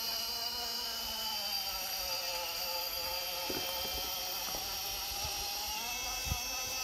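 Electric motor and gear drivetrain of an RC rock crawler whining steadily as the truck crawls slowly up a steep ramp, with a couple of light knocks partway through.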